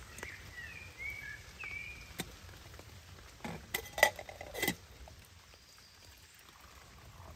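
Metal camp cookware clinking: a few sharp knocks, the loudest about four seconds in with a short metallic ring, as a pot and its lid are handled. A bird chirps several times in the first two seconds.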